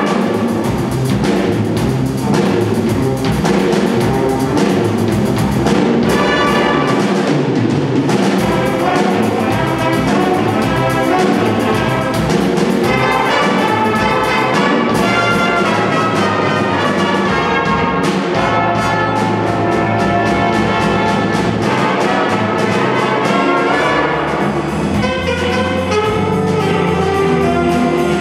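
Jazz big band playing: saxophones, trombones and trumpets together over a drum kit keeping a steady beat.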